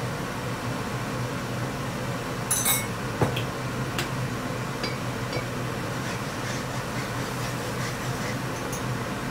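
Clinks of a glass soy sauce bottle being handled and capped, with one sharp knock about three seconds in, then a few lighter clinks of a spatula in a wok, over a steady background hum.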